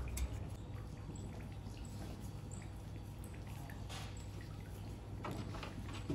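Giant anteater snuffling and licking at a jaguar cub's fur: soft wet clicks and smacks, the clearest about four seconds in, over a steady low rumble.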